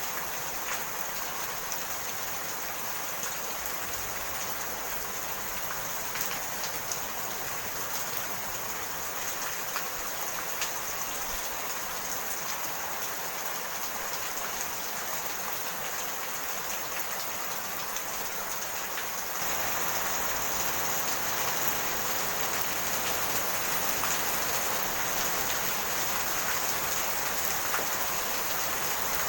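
Steady rain falling, an even hiss with scattered drop ticks, which suddenly becomes louder and fuller about two-thirds of the way in.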